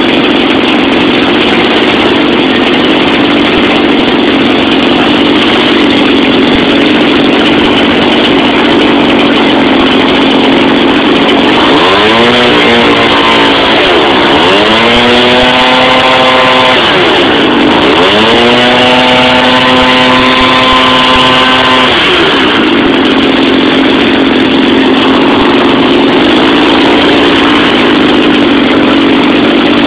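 32cc McCulloch two-stroke engine running loudly through a high-flow muffler while spinning a 16x8 propeller. About halfway through it is revved up three times, each time rising in pitch and settling back, the last held for about four seconds, then it returns to a steady lower speed.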